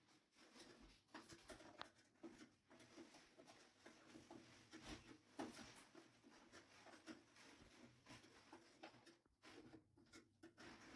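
Faint, irregular clicks, taps and scraping of handling.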